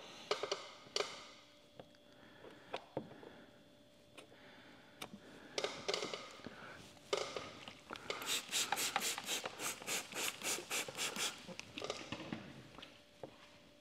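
A hand trigger spray bottle of tack solution pumped about a dozen times in quick succession, about four sprays a second, to flush under lifted paint protection film. Before the spraying come scattered soft rubbing and scraping sounds of hands lifting the wet film from the paint.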